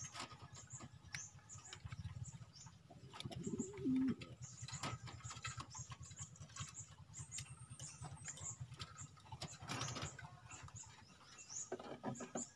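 Pigeons cooing in a loft close by, with one clear coo about three seconds in. Scattered light clicks and rustles come from hands handling small items.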